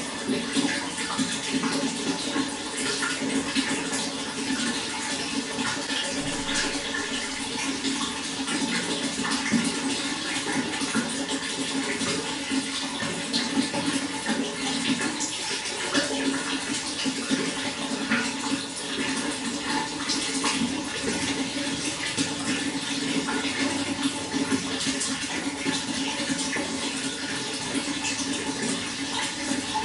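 Running water flowing steadily: a continuous, even rush with constant small splashes and trickles.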